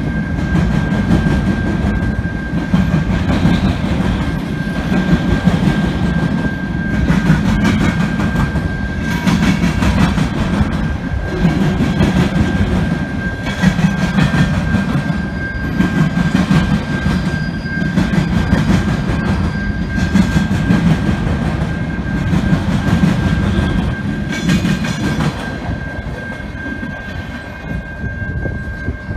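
Freight train cars rolling past, their wheels clattering over the rail joints in a loud, steady rumble. The rumble fades after the last car goes by, about 25 seconds in. A steady high tone runs throughout.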